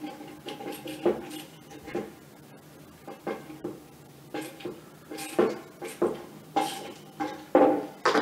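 Hand screwdriver driving a long panhead screw through a TableJack leveler into the foot of a metal table base: irregular metallic clicks and clinks, one or two a second.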